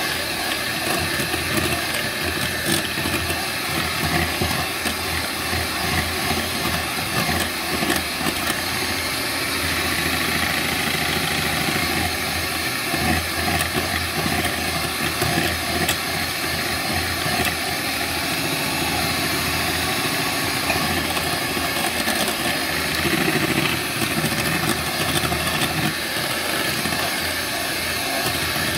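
Electric hand mixer running steadily, its two beaters whirring through a thick butter-and-sugar batter in a glass bowl as eggs are beaten in one at a time.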